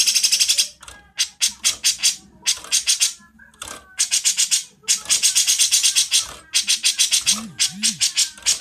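Songbirds giving harsh, high-pitched chattering calls: phrases of very fast clicking notes, about fifteen a second, repeated in bursts of up to a second and a half with short gaps between them.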